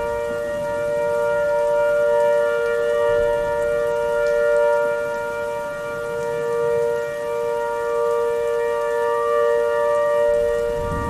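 Synthesized outdoor warning siren held at a steady pitch, sounding a sour chord of two tones. Its loudness swells and fades about every two seconds, like a rotating siren horn sweeping past, over a faint low rumble.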